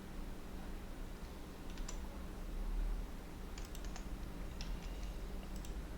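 A few scattered clicks of a computer keyboard and mouse, in small clusters, over a steady low hum.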